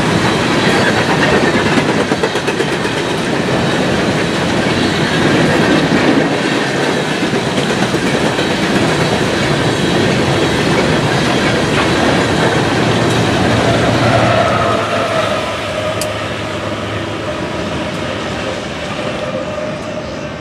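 Empty steel coal hopper cars rolling past at speed: a loud, steady rumble and clatter of wheels over the rail joints. About two-thirds of the way in the sound starts to fade as the train draws away, and a faint, thin wheel squeal lingers over it.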